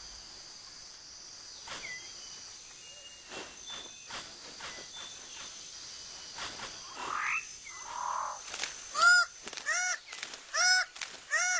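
New Guinea rainforest ambience: a steady high insect hum and a few rising whistled bird calls. Near the end comes a run of loud, harsh, repeated bird calls, about two a second.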